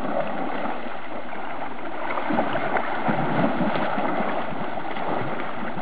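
Steady splashing and sloshing of river water churned up by two young Asian elephants wrestling and rolling while they bathe, with many small irregular splashes.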